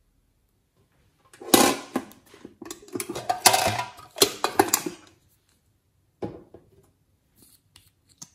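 Plastic-and-metal clatter and sharp clicks of a small makeup case being handled and opened, in a dense run lasting about three and a half seconds. This is followed by a single click and a few faint ticks as a lip gloss tube is uncapped and its wand drawn out.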